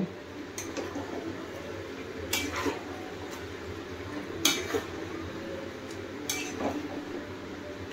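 A metal spoon stirring marinated chicken pieces in a metal kadai, clinking against the pan about four times.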